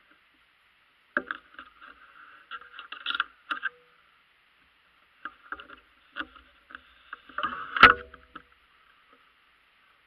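Irregular knocks, clicks and rubbing from a bow being handled, picked up by a Tactacam camera mounted on the bow's stabilizer, with one sharp knock near the end. A faint steady hiss lies under it all.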